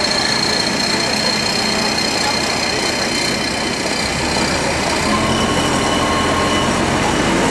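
Engine of the crane lifting the neon sign sections, running steadily, with a deeper low hum coming in about four seconds in.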